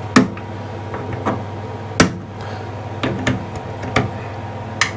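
Sharp clicks and taps of a screwdriver levering and nipping the retaining tabs of a Mira electric shower's solenoid valve coil, working it loose. There are about seven, spaced unevenly, the loudest near the start and about two seconds in.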